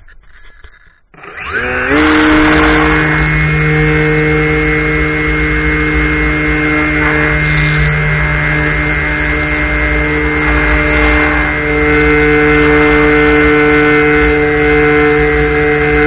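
Radio-controlled model airplane's motor and propeller, heard from on board. About a second in, the motor spools up with a quick rising whine to full throttle, then runs at a steady high pitch through the takeoff and climb.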